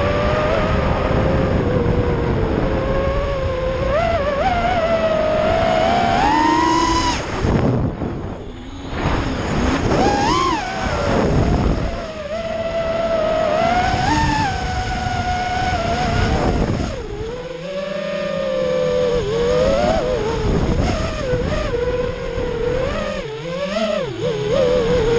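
Brushless motors of a QAV-SX FPV freestyle quadcopter, heard from its onboard camera with wind rushing past. The whine rises and falls in pitch with the throttle. It drops away sharply several times as the throttle is cut, then climbs back as power returns.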